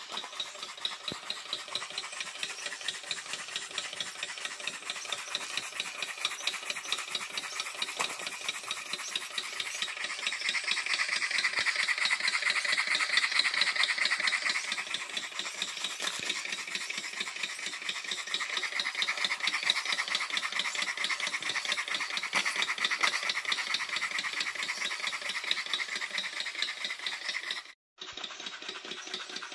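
Small spirit-fired model beam steam engine with a brass boiler running fast: a rapid, even mechanical rattle of clicks that swells louder midway, then eases off.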